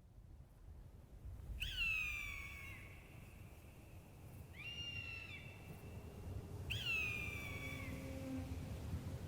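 A hawk screaming twice, each cry a long scream that falls in pitch, about five seconds apart, with a shorter cry between them, over a low rumble like wind.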